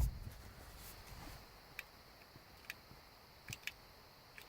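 Four faint, sparse clicks from the buttons of a Toyota remote key fob being pressed. The car gives no lock or unlock response, because the key is still in the ignition's on position.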